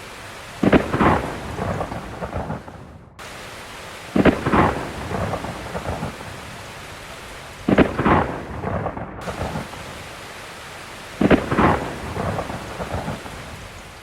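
Heavy rain falling steadily, broken by four sudden loud thunder-like crashes, each with a short rumble after it, that recur at even spacing about every three and a half seconds.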